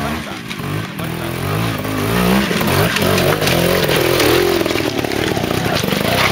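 Trials motorcycle engine revving up and down in quick bursts as the bike climbs a rocky section, getting louder as it comes close.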